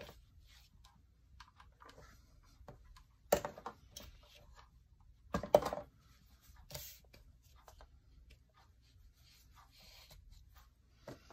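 A terry towel rubbed and dabbed over watercolour paper on a wooden desk: soft, sparse rustling, with two louder knocks about three seconds in and again two seconds later.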